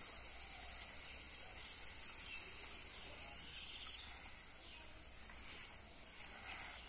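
Faint, steady hiss of soda water at a foaming boil in a kadai as a handful of lafa greens (Chinese mallow) is lowered in.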